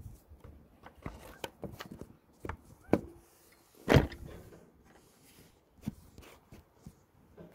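Sparse knocks and clicks, the loudest about four seconds in, with the two loudest each followed by a brief ringing tone.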